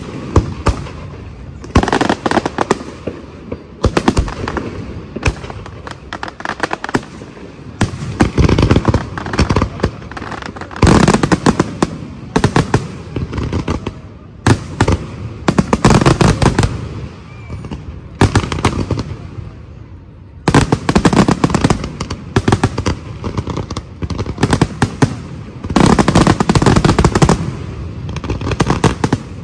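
Aerial fireworks display: shells bursting in rapid volleys of bangs and crackles, coming in dense clusters every few seconds with short lulls between.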